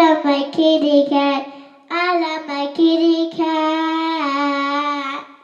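A child singing a simple tune without clear words, in short notes then longer held ones, stopping near the end.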